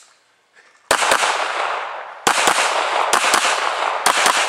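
Handgun fired in quick double-taps: four pairs of shots about a second apart, starting about a second in, each pair followed by a long lingering echo.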